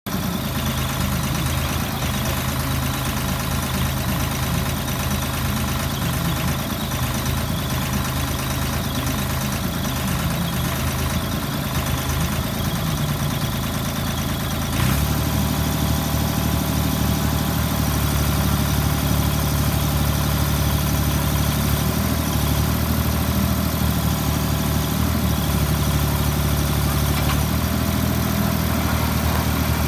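Vermeer RT450 ride-on trencher's Deutz diesel engine running steadily; about halfway through its note shifts and it gets somewhat louder.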